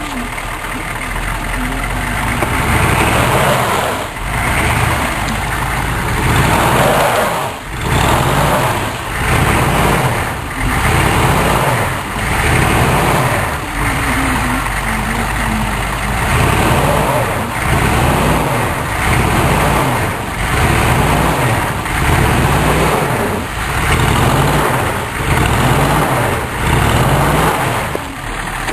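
Chevrolet K5 Blazer engine revving over and over in a steady rhythm, surging about every second and a half, as the truck, stuck in deep snow, is rocked to break free.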